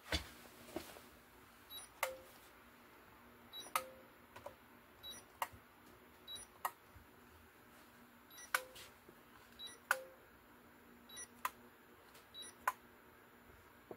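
ABI Systems AL-D320 electronic touch light switches being operated by finger: a string of sharp clicks, one or two every second or so, some with a short low ring after them, as the touch buttons are pressed to test the repaired switches.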